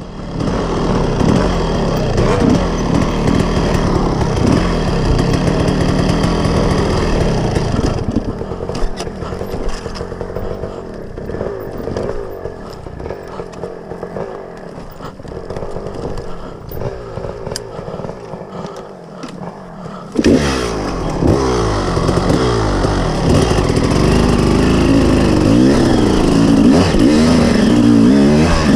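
KTM 380 EXC two-stroke single-cylinder enduro engine pulling a steep, rough climb, the revs rising and falling with the throttle. It runs quieter and lower from about eight seconds in, then about twenty seconds in it suddenly gets louder and revs hard up and down again.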